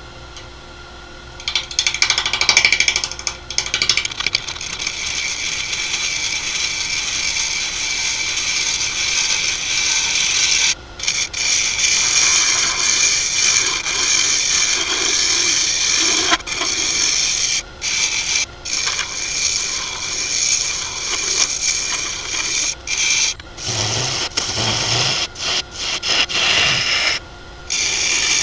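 Carbide turning tool cutting a spinning maple burl bowl on a wood lathe: a steady, hissing scrape of shavings coming off. It starts about a second and a half in and breaks off for a moment several times as the tool lifts from the wood.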